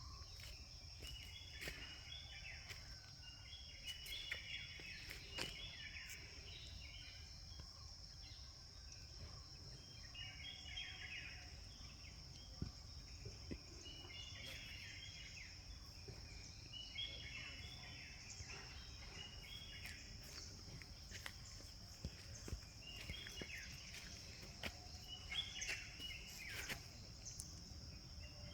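Insects, crickets by their sound, keep up a steady high-pitched drone. Birds chirp in short bursts every few seconds over a low background rumble, with a few faint clicks.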